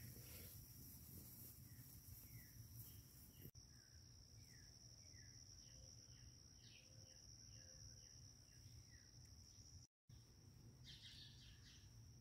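Faint yard ambience: a steady high insect drone, with a bird's short falling chirps repeating about every half second, and a brighter burst of bird chirping near the end.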